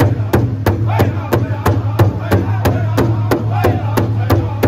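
Powwow drum group singing together around a large shared drum, all striking it with sticks in a steady beat of about three strokes a second under the chorus of voices.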